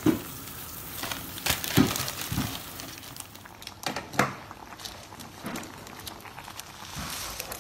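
Scattered knocks and crinkling over a light hiss while an instant ramen noodle block cooks in a pot of boiling water: handling of the pot and the noodle packaging, about eight short knocks spread irregularly through.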